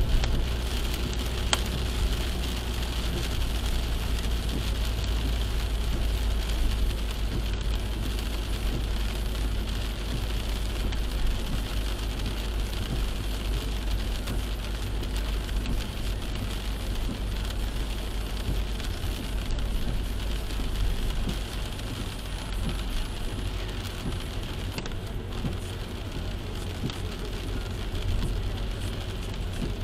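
Steady low rumble of a car driving at about 40 km/h on a wet road, with the hiss of tyres on water, heard from inside the cabin.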